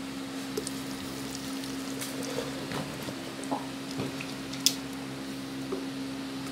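Thick mango shake pouring from a blender jar into a plastic jug, a soft liquid splashing, over a steady low hum. A single sharp click comes about two-thirds of the way through.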